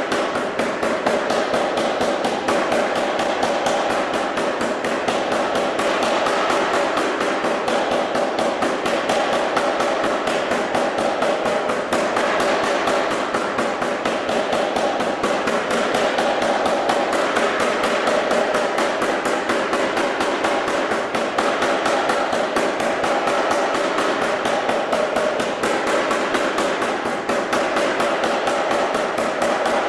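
Anyang self-contained air power hammer striking red-hot steel in a fast, steady run of blows as the stock is forged under the dies.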